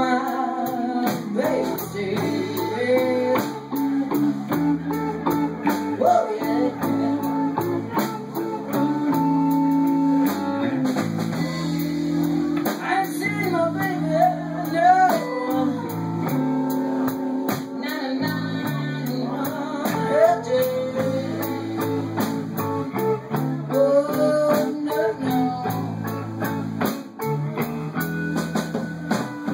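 Live blues band playing a slow blues: electric guitar over electric bass and a drum kit, with bending lead lines.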